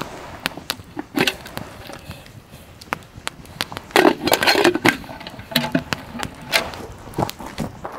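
Campfire crackling and popping, with metal clinks and scrapes from the lid and wire bail handle of a steel pot being handled on the coals. The loudest clatter comes about four seconds in, with more clinks a little before six seconds.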